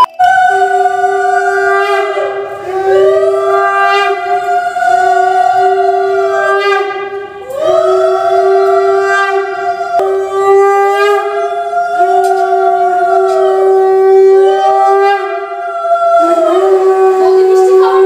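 Conch shell (shankh) blown in long held blasts that break every few seconds, the pitch sagging and rising again at each break, as part of the puja before the idol.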